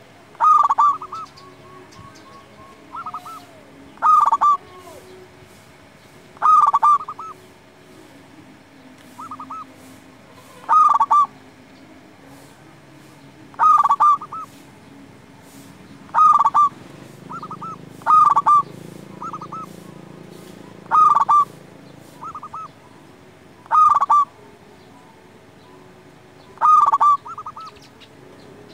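Zebra dove (perkutut) cooing: a loud, quick stuttering coo phrase repeated about every three seconds, with shorter, softer coo notes in between.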